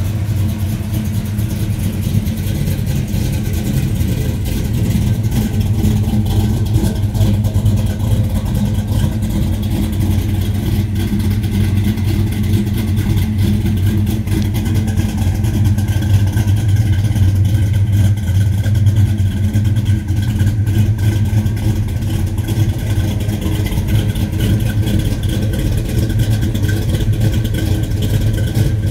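A 355 cubic-inch small-block Chevy V8 with a hydraulic roller cam, Hooker headers and dual exhaust, running at a steady idle.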